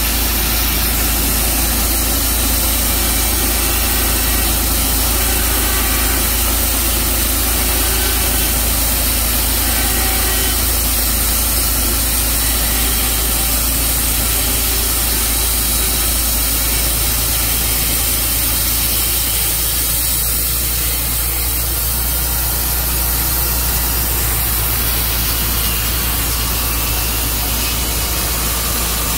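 Engine of a Tru Cut portable sawmill running steadily, at a constant loud level with no breaks.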